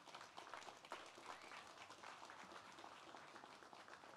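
Light applause from a small crowd, many separate hand claps, easing off slightly toward the end.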